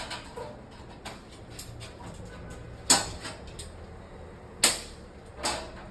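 A few sharp knocks over a low steady hum, the two loudest about three and four and a half seconds in.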